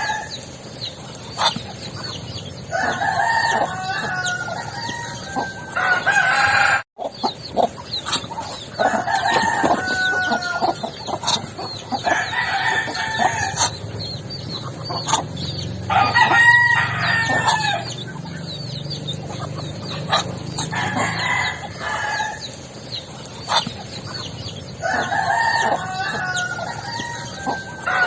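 Roosters crowing again and again, about six crows of a second or two each a few seconds apart, over a busy background of clucking and many short chirps.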